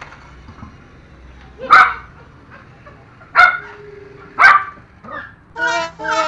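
Poodle barking four times, a second or so apart, the last one weaker. Near the end, a run of short steady pitched notes begins.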